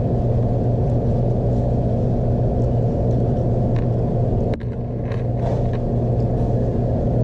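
Steady low rumble with a constant low hum, a few faint clicks, and a brief drop about halfway through.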